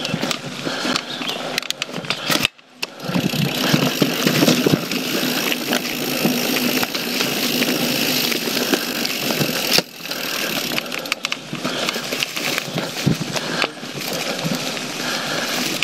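YT Jeffsy mountain bike ridden down a dirt and leaf-covered forest trail: tyres rolling over the ground while the chain and bike rattle in quick clicks, with wind rushing over the action camera's microphone. The sound cuts out briefly about two and a half seconds in, then returns louder.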